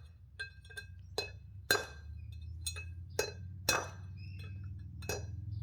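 Hammer tapping an old bearing race to drive a new wheel-bearing race into a caravan hub: sharp metal-on-metal blows about twice a second, each with a bright ring. The hard, ringing blows are the sign that the race has bottomed out on its seat. A steady low hum runs underneath.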